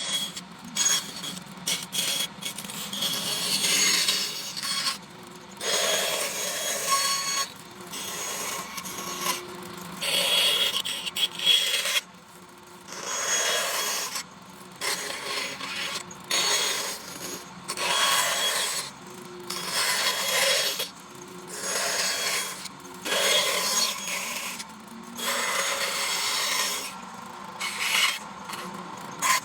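Repeated strokes of a hand tool scraping and rasping on wood, each lasting a second or two with short pauses between.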